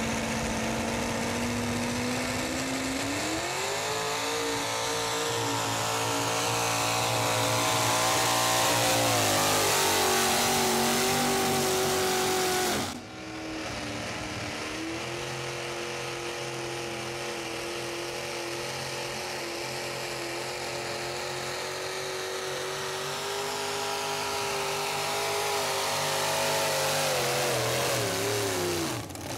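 Pickup trucks' engines at full throttle dragging a weighted pulling sled. The first engine's revs climb about three seconds in and hold high. A sudden cut about 13 seconds in switches to a second truck's engine, which holds high revs and then drops off near the end as its run finishes.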